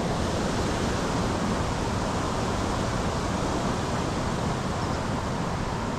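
Steady rushing of water pouring through a dam, an even roar with no breaks.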